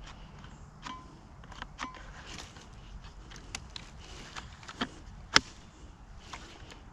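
Scattered clicks and knocks of a Kobalt battery electric chainsaw being handled and triggered while its motor does not run: the saw is failing to start. The loudest is a single sharp knock about five seconds in.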